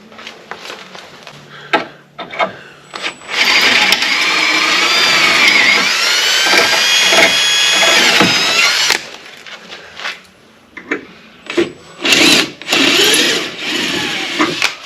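Electric drill running, enlarging a bolt hole in the truck's sheet metal by one bit size. Its pitch sags and rises under load for about five seconds, then it runs again briefly near the end, with clicks and knocks in between.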